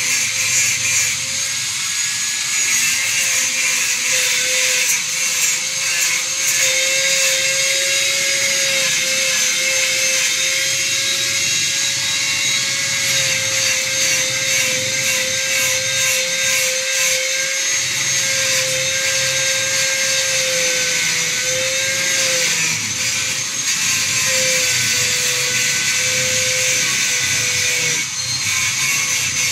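Small handheld electric power tool running steadily with its motor whine at an even pitch, working against the wood of a counter, with a short dip near the end.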